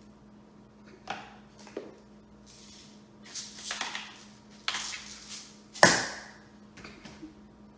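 A run of sharp knocks and wet splats, the loudest about six seconds in, as sour cream spatters across a kitchen table.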